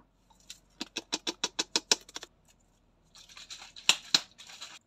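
Handling noise: a quick run of about a dozen light clicks, then rustling with two sharp clicks near the end.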